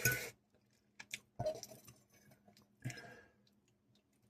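A person chewing food: a few short, soft mouth sounds with quiet gaps between them.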